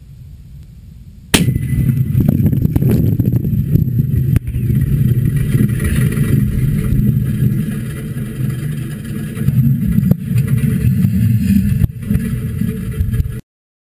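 Explosive demolition of guyed steel radio masts: a sudden sharp bang about a second in, then a long loud low rumble with scattered cracks, cut off suddenly near the end.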